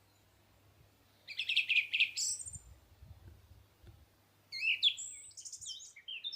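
A small songbird singing in two short phrases: a quick trill of high notes about a second in, and a more varied run of sliding notes near the end.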